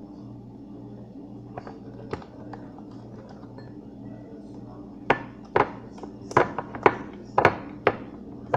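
Homemade slime being worked by hand: after a few faint clicks, a run of sharp, irregular sticky pops and snaps starts about halfway through, as the slime, still slightly sticky, pulls away from the fingers. A steady low hum runs underneath.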